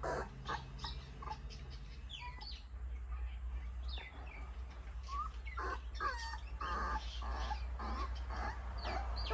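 Young puppies squeaking and whimpering, many short high chirp-like cries, some falling in pitch, coming thicker in the second half, over a steady low hum.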